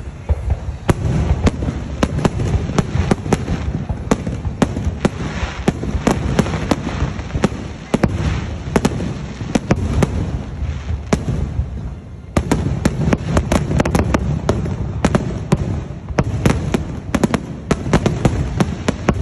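Aerial firework shells bursting in a dense barrage, with many sharp bangs in quick succession and rumbling echoes between them. There are brief lulls about 8 and 12 seconds in.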